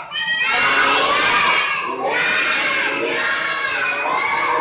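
A group of young children reciting Quran verses together at the tops of their voices, in a loud shouted chant. It comes in long phrases with brief breaths between them.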